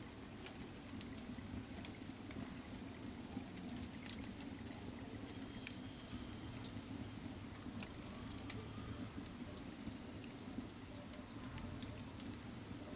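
Cherry-wood campfire crackling: irregular sharp pops and snaps from the burning logs, a few louder ones among many small ticks, over a steady low hum.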